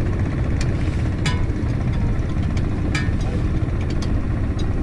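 Small boat's engine idling steadily, with a few sharp clicks over it.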